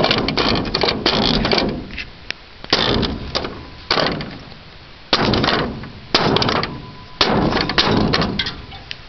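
Sheet metal and the tail light at the rusty rear corner of a 1983 Ford F-350 pickup bed being banged and worked by hand: a string of sharp knocks and clanks, roughly one a second, with scraping and rattling between them.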